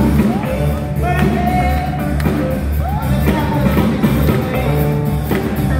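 Live soul band playing through a concert PA, with bass, drums and electric guitar, and a woman singing at the microphone over them.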